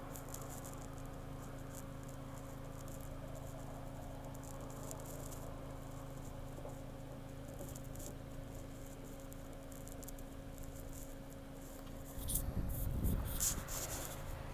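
Quiet outdoor ambience: a steady low hum with scattered faint ticks and crackles. About twelve seconds in comes a louder low rumble with a few sharp clicks.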